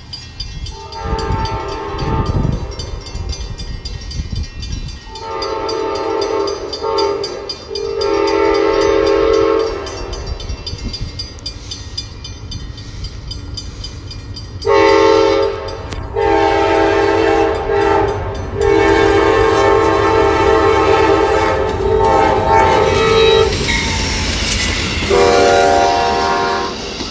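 Locomotive multi-chime air horn sounding a series of long and short blasts, with a longer run of blasts in the second half, over the steady rumble of a train.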